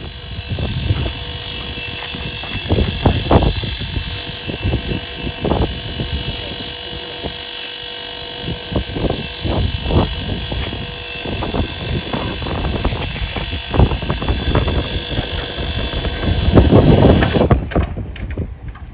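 A Swedish level crossing's warning signal sounds steadily as a high electronic ringing while the full barriers lower. It cuts off suddenly near the end, once the barriers are down. Wind buffets the microphone throughout, gusting hardest just before the signal stops.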